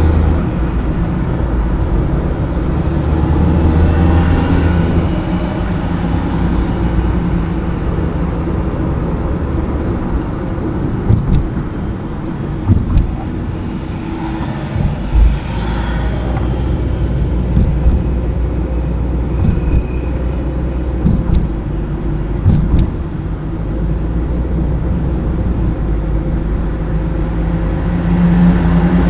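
A car driving on a road, its engine humming steadily under tyre and road noise. The engine note shifts a few times, and several brief knocks come through the middle, as from bumps in the road.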